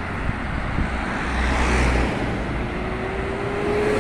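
City street traffic: cars going by with engine rumble and tyre noise, one passing closest about halfway through. A faint rising whine joins in the second half.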